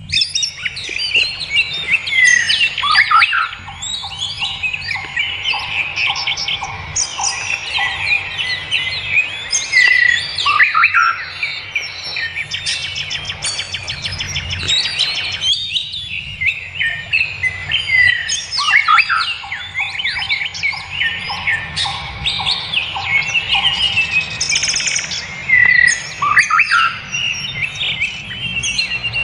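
Several wild birds singing together: dense, overlapping chirps, trills and whistles, with a faint low hum underneath.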